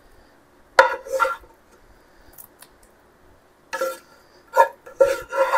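A spoon clinking against a pot while food is spooned out for a lasagna layer: two knocks about a second in, then a quicker run of four near the end, each with a short ring.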